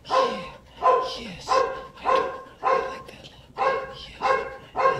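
Pit bull terrier making a steady series of short, breathy whining sounds, about eight of them evenly spaced at roughly three every two seconds, while she pants with her mouth open.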